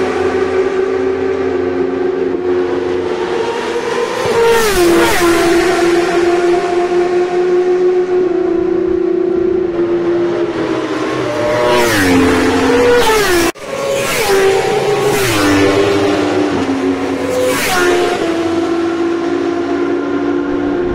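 1000cc racing superbike engines at high revs on the circuit, their pitch climbing and then dropping steeply several times. The sound cuts out very briefly a little past halfway and resumes.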